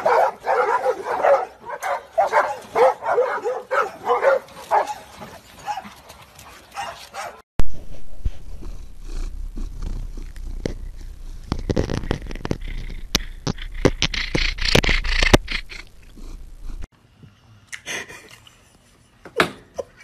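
A dog barking and yipping in a rapid run of short, high calls, about two a second, for the first several seconds. After a sudden cut comes a steady low rumble with sharp knocks close to the microphone.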